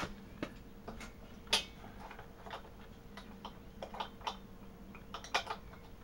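A 14 mm steel wrench clicking and knocking against the pressure gauge fitting of an air compressor while the fitting is being loosened: a dozen or so light, irregular metal clicks, the loudest about a second and a half in and again a little past five seconds.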